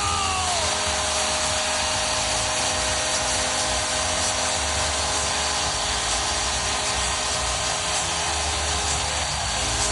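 Arena crowd cheering after a home goal: a dense, steady roar with sustained steady tones held underneath it throughout.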